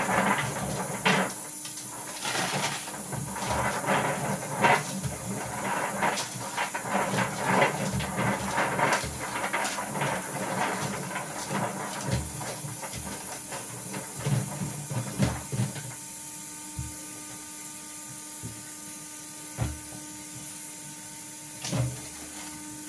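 Hands spreading blanched almonds with a little oil over a parchment-lined baking tray: a rustling, rattling patter of nuts and paper for about the first fifteen seconds, then only a few scattered knocks.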